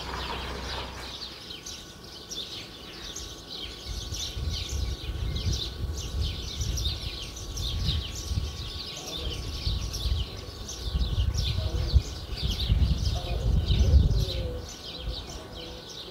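Many small birds chirping busily in the trees, a quick run of short high calls. Gusts of wind rumble on the microphone, strongest about two thirds of the way through.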